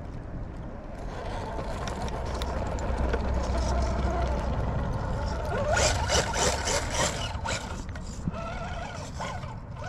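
Fusion SE 1800KV brushless motor and drivetrain of a 1/10 RC rock crawler whining under load as it climbs a rock ledge, rising and falling in pitch with the throttle. Around the middle, the tyres scrabble and crunch on the rock as it crests.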